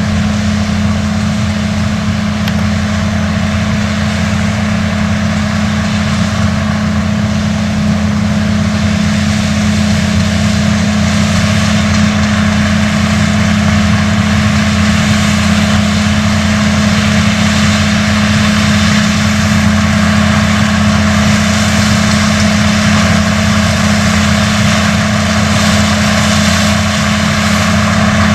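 Case IH 215 Magnum tractor and BOB 46 pull-type bean combine running steadily while harvesting kidney beans. A loud, even engine drone with the combine's threshing machinery noise over it.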